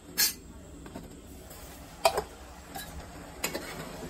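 A few sharp metallic clinks, a second or so apart, as an aluminium pot lid is lifted off and handled.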